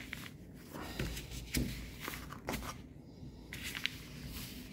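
Handling sounds as a knife is drawn out of a fur-covered deer-hair sheath: a few short, soft rubs and scrapes.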